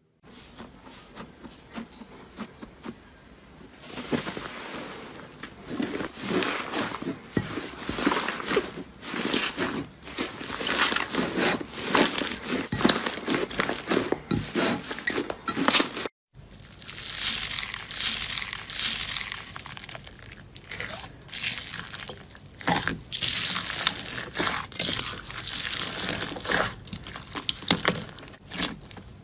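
Crunchy, crackling sounds of slime being squeezed and pressed by hand, made up of many small rapid crackles. The sound breaks off briefly about 16 seconds in, then resumes.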